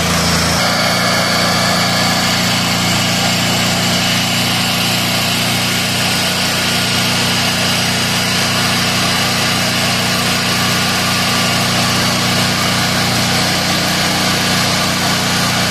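Honda gasoline engine of a portable generator running steadily at its governed speed, its hum shifting slightly about half a second in; the engine speed is being set so the generator puts out 60 Hz.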